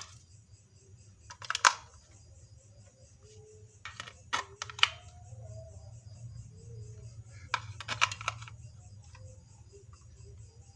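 Sharp plastic clicks and rattles in three short clusters, about a second and a half, four and a half and eight seconds in: AA batteries being fitted into a toy RC helicopter's plastic remote control. A low steady hum runs underneath.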